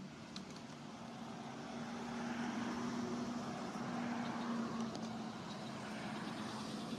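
Engine hum of a passing motor vehicle, a steady low drone over broad noise that swells about two seconds in and slowly fades.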